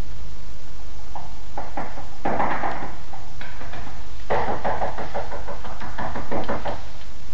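Rapid pounding knocks on a door, in two bouts, the second longer.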